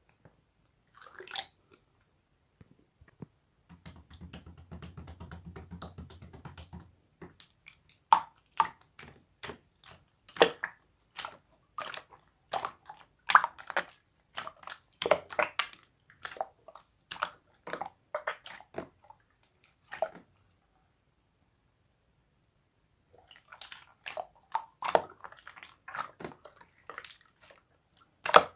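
Slime being squished and poked by hand, giving a run of short, wet clicks and pops. They stop for about three seconds two-thirds of the way through, then start again.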